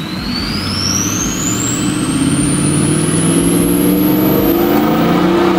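Turbocharged pickup truck accelerating: a high turbo whistle rises steadily in pitch over an engine note that climbs slowly.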